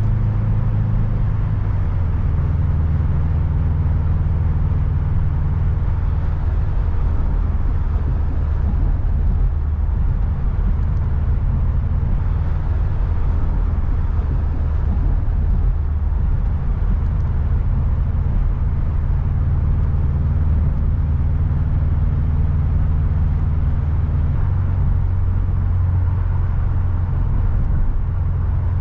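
A car driving, with a steady low engine drone and road noise. The engine pitch shifts slightly about a second and a half in and again near the end.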